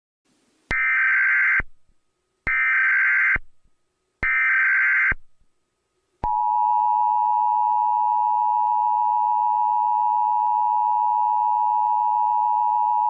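Emergency Alert System tones. Three short, harsh bursts of SAME digital header data, each just under a second, then about six seconds in the steady two-tone EAS attention signal starts and holds.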